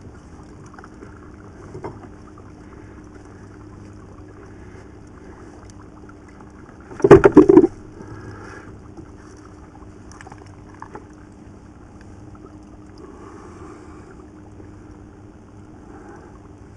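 Boat's outboard motor running steadily at idle, a low even hum. About seven seconds in comes one loud, brief fluttering burst of sound.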